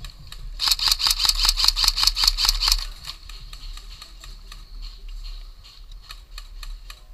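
Airsoft electric guns (AEGs) firing: a loud burst of rapid, evenly spaced shots lasting about two seconds, starting about a second in, then quieter shots that go on.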